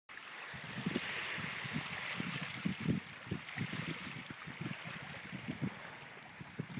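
Choppy water splashing and lapping, with irregular low thuds of wind gusting on the microphone.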